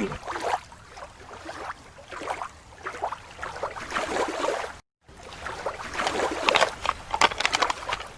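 Water sloshing and splashing in irregular bursts as toy animals are moved about in it, with a brief dropout about five seconds in.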